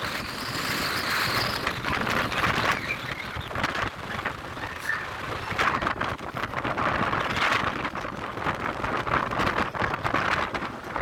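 Gusty wind buffeting the microphone over steady monsoon rain, a loud rushing noise that swells and falls every couple of seconds.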